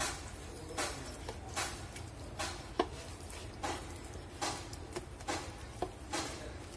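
A bare hand kneading chicken leg pieces in a thick, wet spice marinade in a bowl: soft squelching slaps repeating about every three-quarters of a second.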